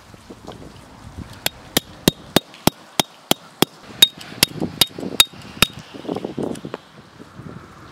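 Copper-headed peg hammer driving a steel tent stake into snowy ground: about a dozen quick metal-on-metal strikes, roughly three a second, each with a short ring, stopping a little before the end.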